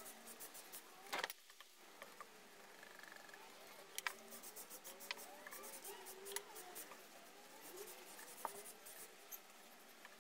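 Faint scratchy strokes of a paintbrush laying clear finish onto timber boards, repeated over and over with a few sharper taps, over faint wavering tones in the background.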